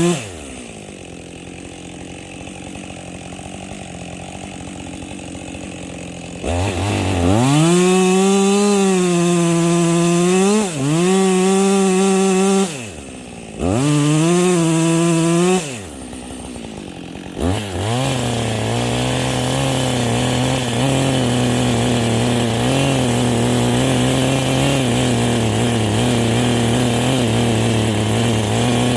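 Chainsaw felling a fir tree: it idles, is throttled up high three times with drops back to idle between, then from about halfway runs steadily at a lower pitch, held down by the cut.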